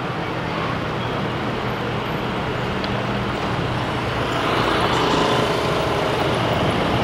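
Street traffic: the steady hum of motor scooter and car engines passing along the road, growing a little louder about four and a half seconds in.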